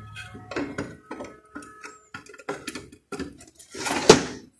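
Irregular clicks, taps and light rattles of circuit boards with aluminium heatsinks being handled in a metal card cage, with a louder, longer handling noise about four seconds in.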